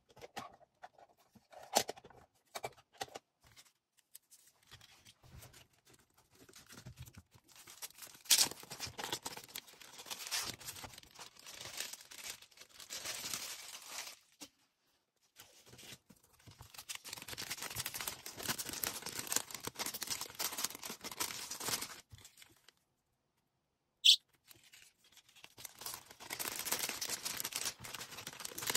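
Order packing: plastic packaging rustling, crinkling and tearing in three long stretches, after a few light clicks and taps at the start. A single sharp click falls in the gap before the last stretch.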